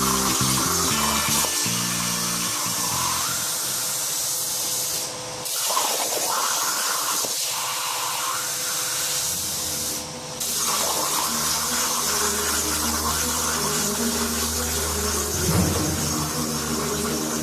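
Background music over the steady hiss of a Hypertherm Powermax plasma cutter cutting steel plate on a CNC table. The hiss dips briefly twice, about five and ten seconds in.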